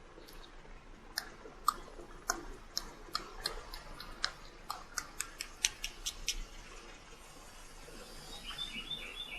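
A run of sharp, irregularly spaced clicks and ticks lasting several seconds, followed near the end by a quick series of short, high chirps.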